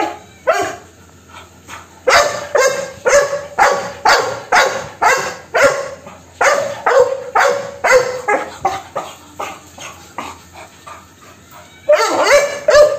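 Young chocolate Labrador retriever barking over and over, about two barks a second. There is a short break just after the start, the barks turn fainter and sparser in the second half, and a quick, loud flurry of barks comes near the end.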